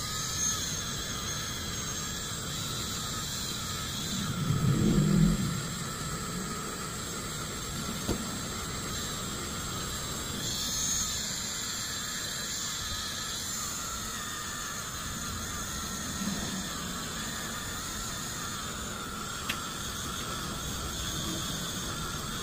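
Dremel 8220 cordless rotary tool running steadily with a high-pitched whine, its small polishing wheel pressed against a copper-plated pendant to work diamond polishing compound into the surface. A brief louder low rumble comes about four to five seconds in.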